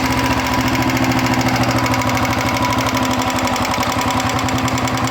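Royal Enfield Electra 350 single-cylinder engine running steadily, with a light, rhythmic 'tak tak tak' tapping from the valve gear that keeps pace with engine speed. The tapping remains even though the tappets and their oil holes have just been cleaned.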